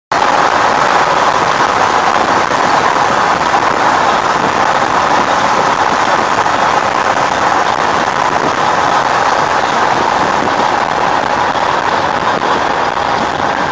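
Steady road and wind noise inside a car cruising at highway speed, an even dense hiss. It cuts in suddenly at the very start.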